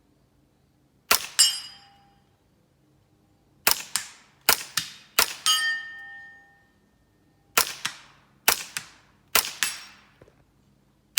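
Seven suppressed shots from a Smith & Wesson M&P 15-22 rifle firing subsonic .22 rounds through a Gemtech suppressor, as quiet cracks at uneven intervals. Each shot is followed about a third of a second later by a second crack, with a ringing tone after a couple of them, which fits the bullet striking a steel target downrange.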